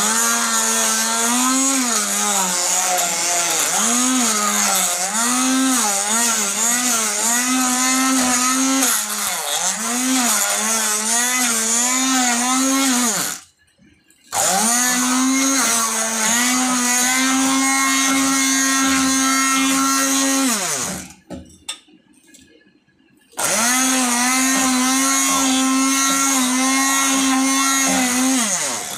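Electric hand blender's motor whirring as it whips cream in a steel bowl, its pitch dipping and recovering again and again as the blade meets the cream. It runs in three stretches, switched off twice for a second or two.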